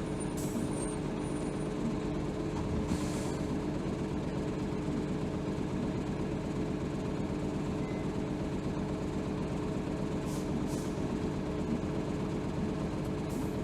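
Hino Rainbow HR city bus running steadily, heard from inside the cabin: engine and drivetrain noise with a steady whine, broken a few times by short air hisses.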